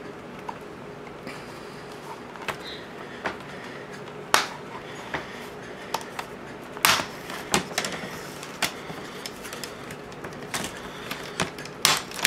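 Plastic snap clips of a Dell Vostro 1520 laptop's screen bezel clicking loose one after another as the bezel is prised off by hand: a dozen or so scattered sharp clicks over a faint steady hum.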